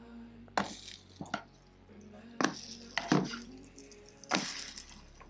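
Plastic spatula knocking and scraping against a nonstick frying pan as pancakes are flipped: about five sharp clacks spread across the few seconds.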